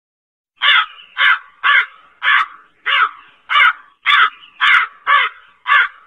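A crow cawing: a steady series of about ten caws, roughly two a second, starting about half a second in.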